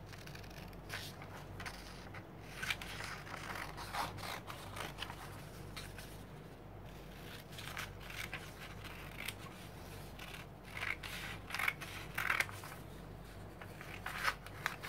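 Hand scissors snipping through sheets of printer paper: a run of irregular short cuts with brief pauses between them.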